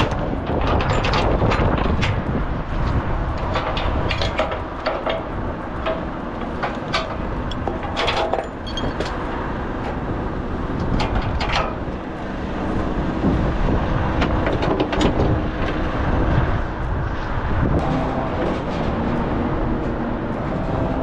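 Ratchet wheel strap on a car transporter being tightened and handled, giving irregular metallic clicks and knocks. Under it runs a steady low engine rumble.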